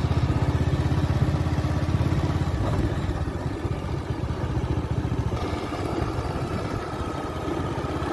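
A motorcycle engine running steadily while riding: a low, rapid throb that eases slightly after about three seconds.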